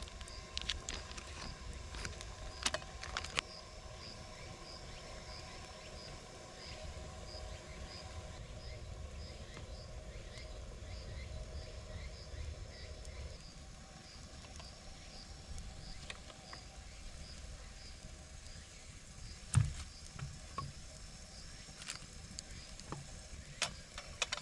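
Woodland ambience: a high short call repeats about twice a second over a low steady rumble, with scattered sharp clicks and the crinkle of plastic food packets being handled. A single louder thump comes about two-thirds of the way through.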